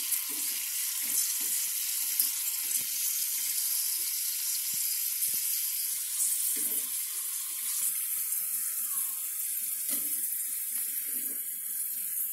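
Cornflour-coated corn kernels deep-frying in hot oil in a kadai: a steady sizzling hiss, with faint knocks of the slotted spoon stirring in the pan, as the kernels turn golden brown.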